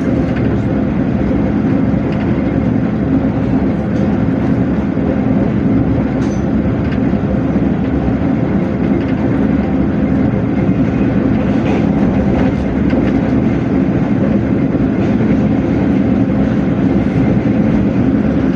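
Steady rumble and rail noise of a passenger train running along the track, heard from inside the coach by the window, with a few faint clicks of the wheels over the rails.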